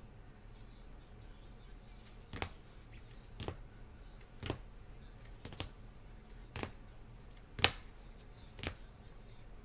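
Hard plastic trading-card cases clacking against one another as a stack of encased cards is flipped through, one card at a time: seven sharp clicks about a second apart, the loudest near the end.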